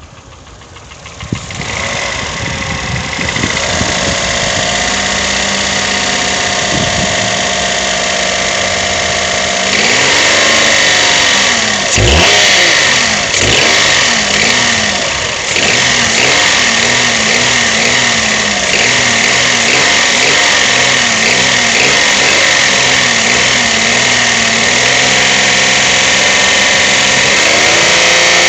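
Toyota 1KR-FE three-cylinder petrol engine running with a knock whose cause is unknown, even though its timing chain, tensioner and chain guide are new. It runs steadily at first, then is revved up and down several times from about ten seconds in.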